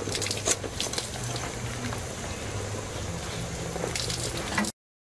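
Water boiling hard in a metal pot of eggs, a steady bubbling, with a few light clinks in the first second from the wire skimmer against the pot. The sound cuts off abruptly near the end.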